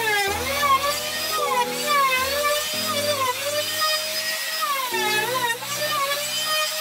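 Small electric power tool whining, its pitch dipping and recovering over and over as it bites into wood under load.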